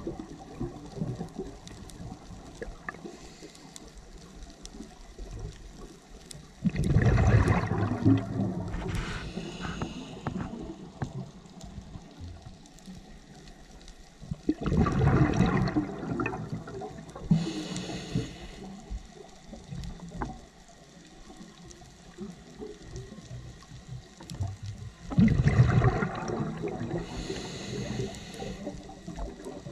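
Diver breathing through a scuba regulator underwater: three loud bursts of exhaled bubbles roughly nine seconds apart, each followed by the thin hiss of an inhale through the regulator.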